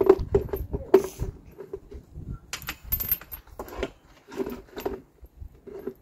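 Small metal clinks of nuts and washers being handled and fitted onto the bolts of a tractor wheel rim, among irregular knocks and rustling.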